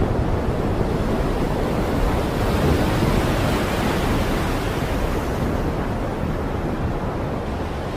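Stormy sea and wind: a steady, even rush of wind and rough surf with no single wave crash standing out.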